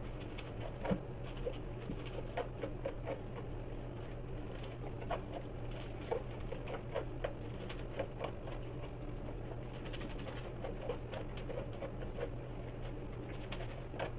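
A basset hound eating dry kibble from a stainless steel bowl: irregular crunching and clicking of kibble against the metal, over a steady low hum.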